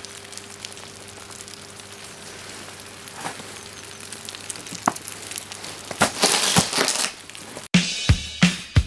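Soft crunching and rustling, louder for about a second some six seconds in. Near the end it cuts off abruptly and guitar-and-drum music with a steady beat begins.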